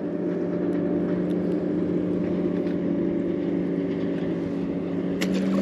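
Motorboat engine running steadily on the water, a continuous hum that rises slightly in pitch near the end.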